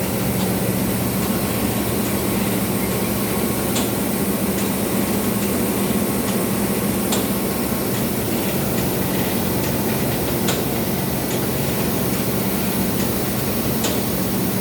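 Absorbent cotton machine running steadily: a constant mechanical hum with scattered light ticks.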